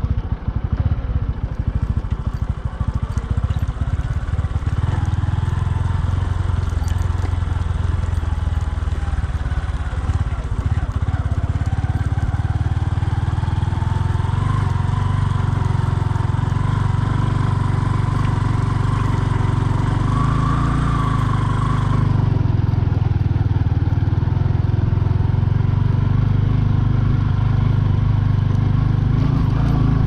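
Bajaj Boxer 150 motorcycle's single-cylinder four-stroke engine running while riding on a snowy road. The sound is uneven for about the first ten seconds, then settles into a steadier run.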